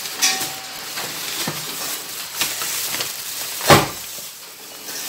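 Stiff brown food-wrapping paper rustling as it is handled over a cake tin, with a few light knocks, then one loud thump about three and a half seconds in as the aluminium baking tin is turned over and set down on the table.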